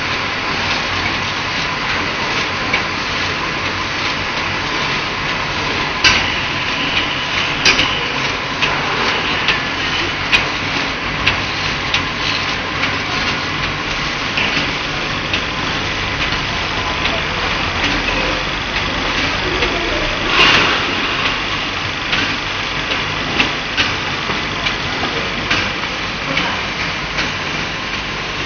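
Twin-station shrink sleeve labeling machine and its bottle conveyor running: a steady machine din with a faint steady tone, broken by frequent sharp clicks and knocks.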